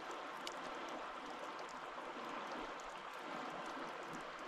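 River water flowing steadily past a gravel shore, a low even rushing with a few faint high ticks.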